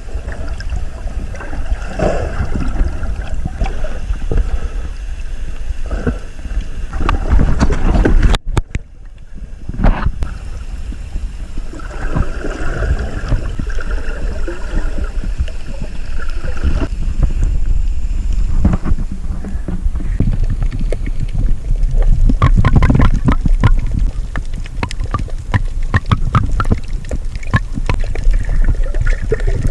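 Sea water sloshing and splashing close to the microphone, with wind buffeting the mic as a heavy low rumble. The sound drops out briefly about eight seconds in.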